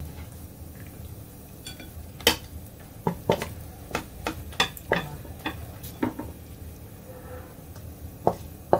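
Irregular sharp knocks and clicks of a wok and spatula against a ceramic serving plate as the braised food is scraped out of the wok onto it, about a dozen taps in all.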